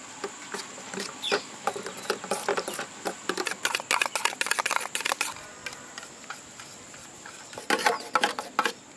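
A metal spoon clinking and scraping in a stainless-steel bowl as a sauce is stirred into mayonnaise, in rapid irregular clicks that pause for a couple of seconds past the middle and start again near the end. Crickets chirp steadily behind.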